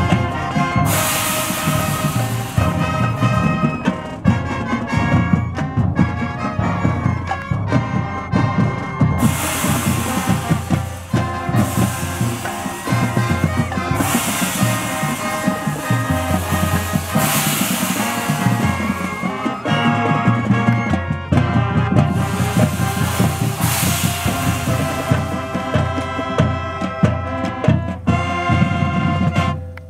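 High-school marching band playing at full volume in a standing block: brass including sousaphones, saxophones and clarinets over bass drum and front-ensemble percussion, with repeated loud swells. The band cuts off sharply near the end.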